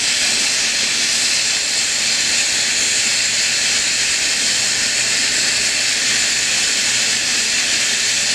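Steam locomotive No. 473, a K-28 class 2-8-2, standing still and venting steam with a loud, steady hiss.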